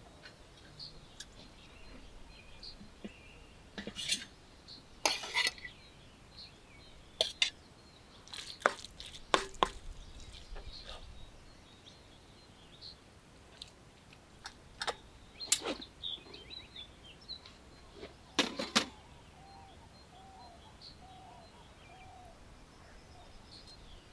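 Scattered clinks and knocks of cooking utensils and dishes being handled, some in quick pairs, with faint bird chirps behind.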